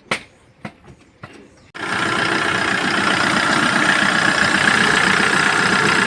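A few light clicks, then about two seconds in the Kia Bongo 3's J3 CRDI diesel engine is started and runs loud and steady, its fuel system freshly primed by hand.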